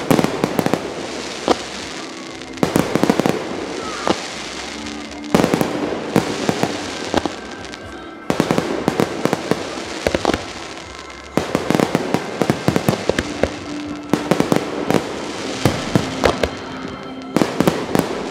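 Aerial firework shells bursting in volleys: sharp bangs followed by crackle, in clusters every one to three seconds.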